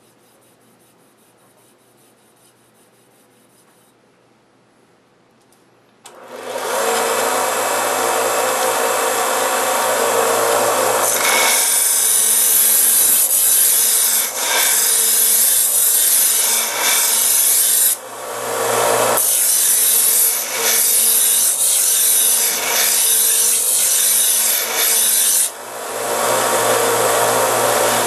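AquaSharp water-fed electric knife sharpener starting up about six seconds in, its motor humming under a loud grinding hiss as a chef's knife blade is held against the abrasive. The grinding breaks off briefly three times as the blade is lifted and set back, the longest break lasting about a second.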